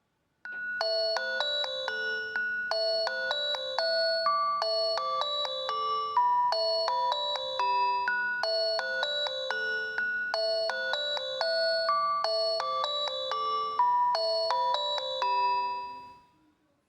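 A preset ringtone-style melody on a Reeder P13 Blue smartphone: a quick tune of short pitched notes that repeats about every two seconds, then dies away about sixteen seconds in.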